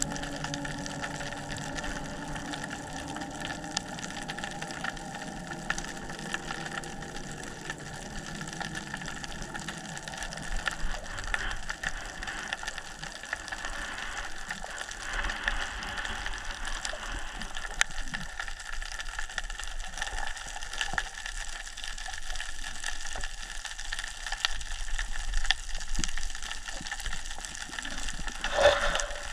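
Underwater ambience heard through a camera's waterproof housing: a steady crackle of many tiny clicks over a water hiss, with a low droning hum that fades out over the first several seconds and a brief louder rustle near the end.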